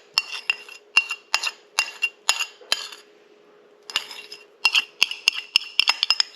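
A metal spoon clinking repeatedly against a glass mixing bowl, a few sharp taps a second, stopping for about a second midway and then starting again.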